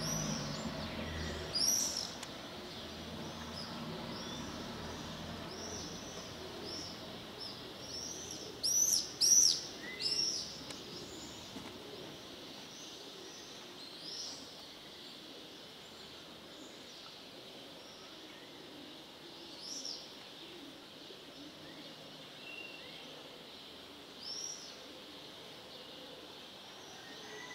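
Small birds calling outdoors with short, high chirps scattered throughout, loudest in a quick cluster about nine seconds in. Under them is a low background rumble that fades after about twelve seconds.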